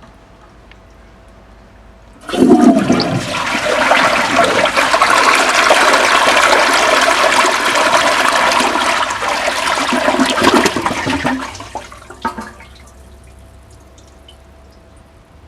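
A 1970s American Standard front-trap toilet flushing. A sudden loud rush of water starts about two seconds in and runs for about nine seconds, then tails off with a last short gurgle.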